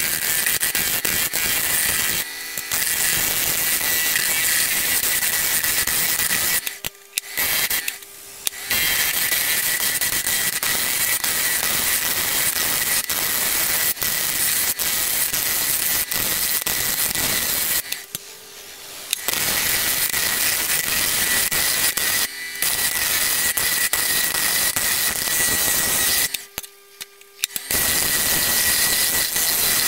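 A wood lathe turning tool cuts a spinning wooden blank, making a loud, steady scraping noise. It breaks off a few times for a second or so where the tool leaves the wood, and only the lathe motor's steady hum is left.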